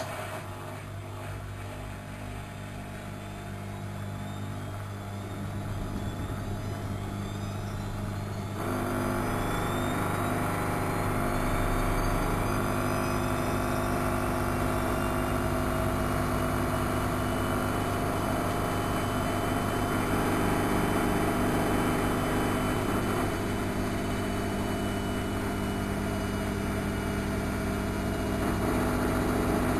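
Studio WM26AAA washing machine's motor starting suddenly and spinning up the drum: a steady hum with a whine that rises slowly in pitch. It grows louder, with a step up about eight seconds in.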